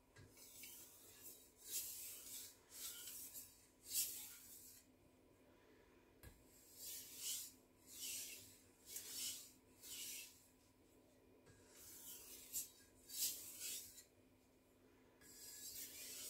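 Light strokes of a Victorinox Chinese cleaver's edge across a sharpening stone, under only the knife's own weight, putting on a micro bevel at about 15 degrees. A faint, soft scraping swish, about two strokes a second, in four runs with short pauses between.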